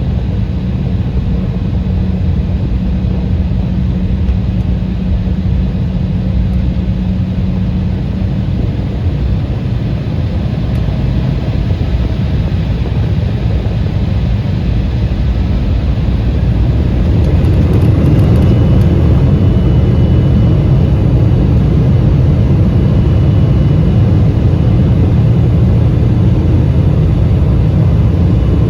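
Cabin noise of an Embraer 175 with its GE CF34-8E turbofan engines running: a steady rumble. About two-thirds of the way through it grows louder and a high fan whine joins in as engine thrust comes up.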